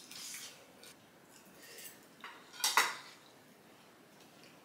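An eating utensil clinking and scraping against a dish a few times, with one sharp clatter a little under three seconds in.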